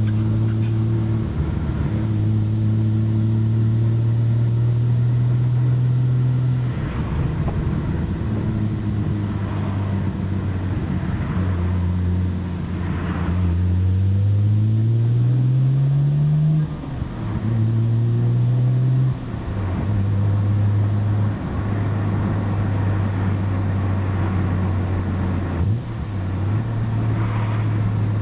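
Nissan Skyline GT-R R34's RB26DETT straight-six driving on the road with the windows down. The engine note holds steady for long stretches, rises over a few seconds around the middle and drops at a gear change. Under it the stock Getrag six-speed gearbox rattles, which the owner finds abnormally loud and fears needs an overhaul.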